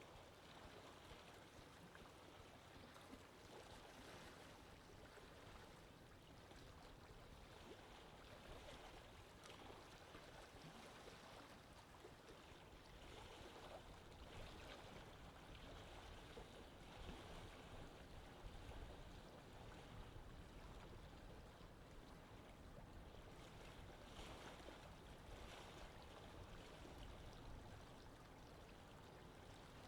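Faint, steady wash of moving sea water.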